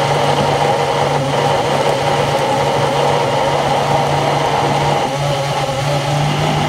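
Vitamix S50 blender motor running with a steady low hum, straining under a thick frozen ice cream mix. The machine is overloaded and slowed, still short of full speed.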